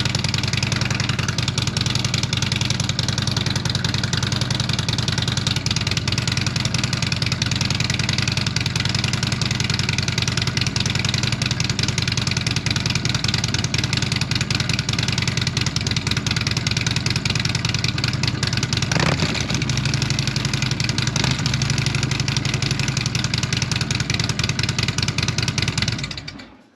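Harley-Davidson Street Glide's V-twin engine idling steadily through its Rinehart slip-on exhaust, with a brief change in the note about two-thirds of the way through. It stops just before the end.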